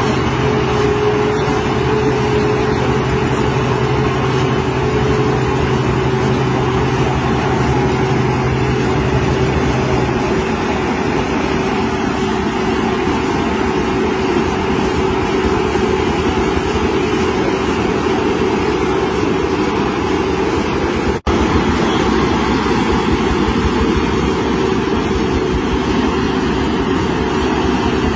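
Sen Rui 4QZ-2600 self-propelled silage harvester running while harvesting: a loud, steady machine noise with a constant whine over it. A low hum drops away about a third of the way through, and the sound breaks off for an instant about three quarters of the way through.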